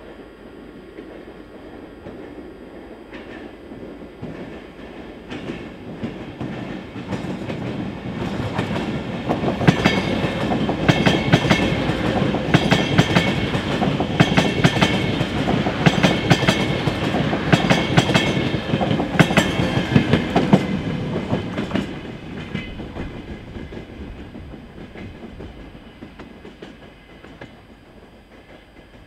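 CP Alfa Pendular tilting electric train passing slowly at close range. Its wheels click rhythmically over the rail joints; the sound builds for several seconds, is loudest for about ten seconds as the coaches go by, then fades away.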